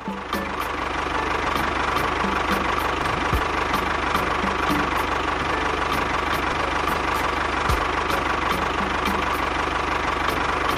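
Mini tractor's engine running steadily, a dense mechanical drone with a light, regular ticking.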